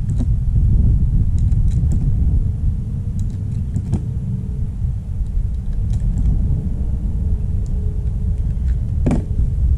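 Wind buffeting the microphone as a steady low rumble, with faint scattered clicks of magazines and .380 ACP cartridges being handled at a shooting table.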